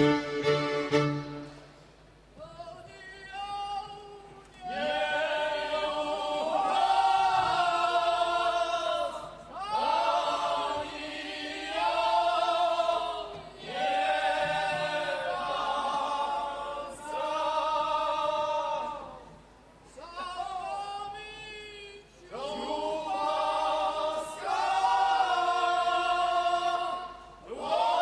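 Górale (Podhale highlander) men's group singing unaccompanied, loud and full-voiced, in phrases a few seconds long with short breaks between them. A fiddle stops about a second in.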